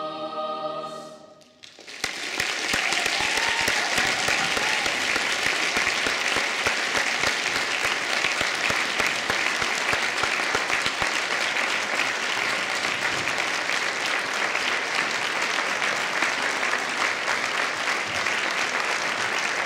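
A boys' choir holds its final chord, which dies away about a second and a half in; then an audience breaks into steady applause.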